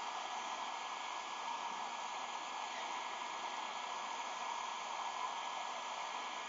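Hot-air blower running steadily, a constant rush of air with a faint steady whine, warming the vinyl film so it can be stretched.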